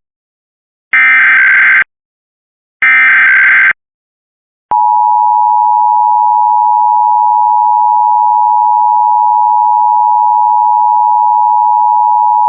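Emergency Alert System test signal: two SAME header data bursts, harsh warbling screeches about a second long and a second apart, then after a short gap the EAS attention signal, a steady two-tone (853 and 960 Hz) alarm tone held for about eight seconds.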